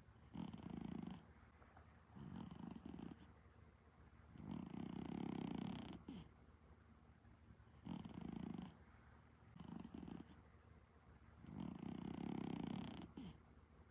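An Exotic Shorthair cat snoring softly in a steady breathing rhythm. There are six snores, each about a second long with quiet gaps between them, and a few are longer and louder than the rest.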